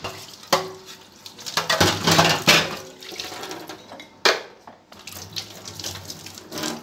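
Steel utensils being washed under a running tap in a stainless steel sink: water running and splashing, with sharp clanks of metal knocking on metal about half a second in and again just past four seconds.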